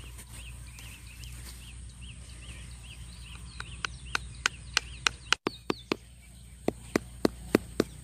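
Wooden pegs being knocked into the ground with a piece of wood: a run of sharp knocks starting about halfway through, a few a second. Before the knocking a bird repeats a short chirp over and over.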